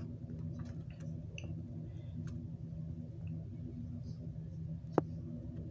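Quiet room tone with a steady low hum, a few faint ticks, and one sharp click about five seconds in.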